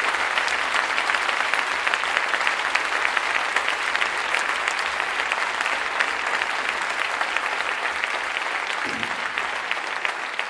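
A large audience applauding, a dense steady clatter of many hands clapping that eases slightly near the end.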